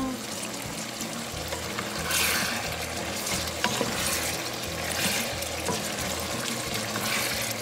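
Chopped chicken sizzling and bubbling in its own released juices in a pan, stirred with a wooden spatula in several strokes.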